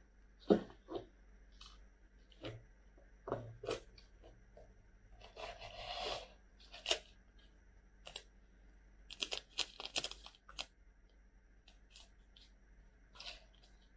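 The paper lid of a Samyang Hot Chicken Flavor cup ramen bowl being peeled back by hand: short crinkling, tearing and rustling sounds in scattered bursts. There is a longer stretch of rustling about five to six seconds in and a quick run of crackles around nine to ten seconds.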